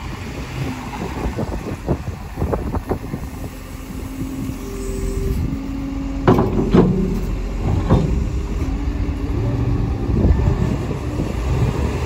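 Heavy machinery running with a steady low rumble, with a short held tone about five seconds in and a few sharp knocks or clanks between about six and eight seconds in.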